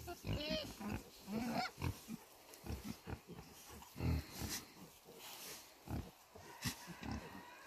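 Pigs grunting with many short low grunts, and twice in the first two seconds a higher squealing call that bends in pitch.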